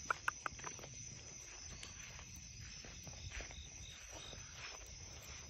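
Faint night-time outdoor ambience with crickets chirping steadily. Three short sharp clicks come in the first half second.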